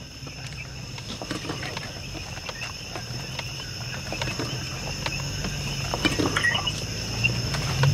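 4x4 truck creeping over a rough dirt trail: a low steady engine hum with scattered knocks and rattles, growing louder toward the end, under a steady high chorus of night insects.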